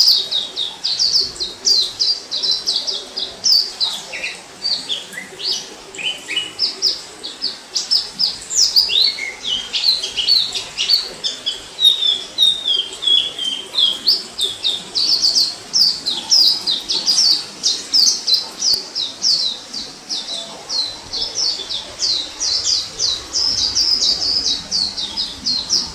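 White-eye (pleci, Zosterops) singing: a fast, continuous twittering of short, high chirps without a break.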